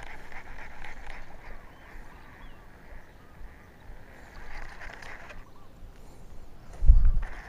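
Repeated animal calls that stop a little over five seconds in; a loud low thump comes near the end.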